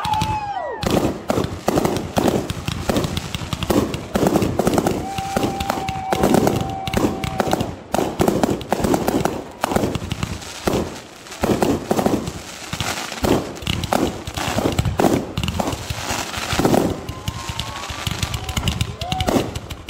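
Aerial fireworks display: a rapid, continuous barrage of shell bursts and crackling.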